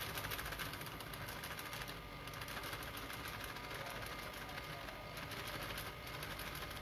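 Steady whirr of a small electric motor with a fine, rapid pulsing to it.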